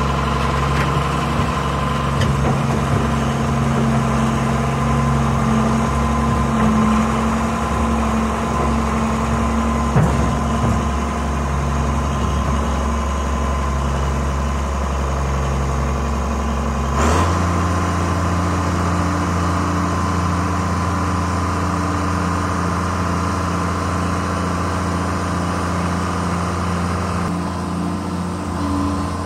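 Diesel engine of a John Deere 690B excavator running steadily as the machine tracks away. Its note changes about seventeen seconds in.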